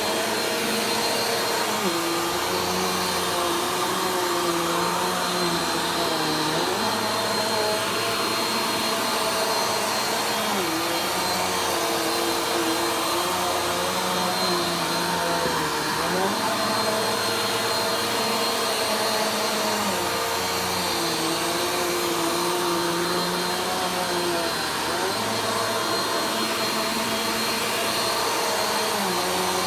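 Vacuum cleaner running continuously as it is slowly worked across the floor. Its motor note dips and recovers every four or five seconds, with each stroke.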